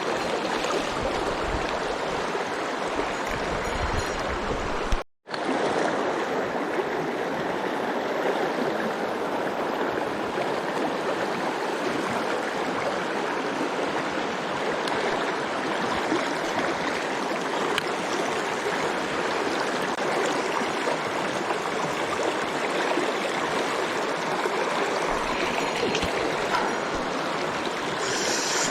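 Mountain stream rushing steadily over rocks. The sound cuts out for a split second about five seconds in.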